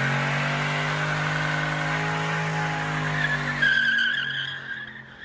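Lexus LS400's V8 engine held at high, steady revs during a burnout, with the rear tyres spinning and squealing. Near the end the squeal rises in pitch, then the engine drops off and the sound fades.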